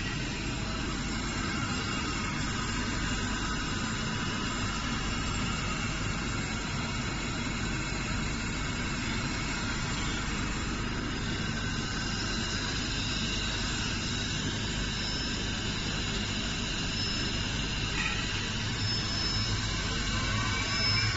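Steady hum of running machine-shop machinery, with several steady whining tones over an even mechanical noise.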